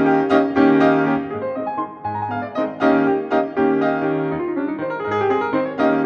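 Background piano music, a lively melody of quickly struck notes over steady lower chords.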